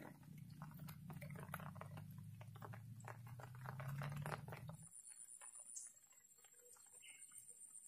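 Light drizzle ticking as scattered raindrops, over a low steady hum that cuts off about five seconds in; a thin, high pulsing tone starts about then.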